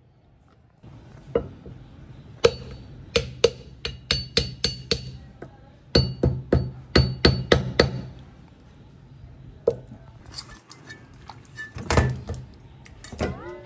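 Cleaver chopping through puffer fish on a thick plastic cutting board: two runs of sharp strikes, about three a second, each with a brief metallic ring, then a few scattered knocks near the end.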